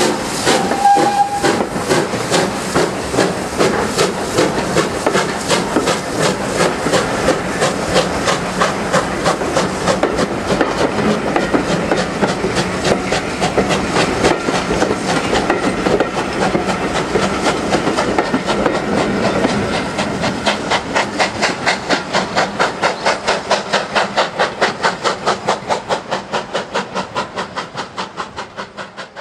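Steam train of a BR Standard 4 2-6-4T tank locomotive and its coaches pulling away past, with steam hiss and the wheels clattering over the rail joints. A short high note sounds about a second in, and a steady beat of about two to three a second stands out as the train fades into the distance.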